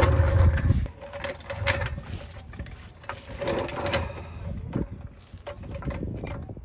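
Hydraulic floor jack being pumped by its long handle to lift a vehicle: a series of mechanical clicks and creaks from the pump strokes. A low rumble stops abruptly about a second in.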